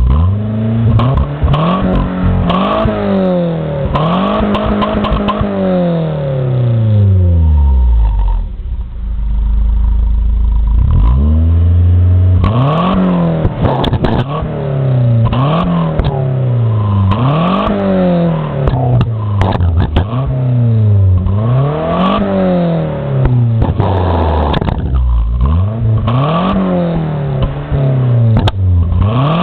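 Renault Espace II 2.2-litre four-cylinder petrol engine revved hard again and again through a twin-tip exhaust. Two long revs near the start are followed by a few seconds of idle, then a quick series of blips about every two seconds. Sharp pops come as the revs fall, with flames spitting from the tailpipe.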